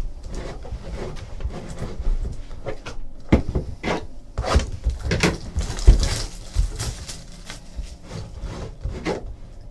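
Hands handling and opening a cardboard hobby box: a string of rubs, scrapes and knocks of cardboard on cardboard and on the table, the loudest knock about six seconds in.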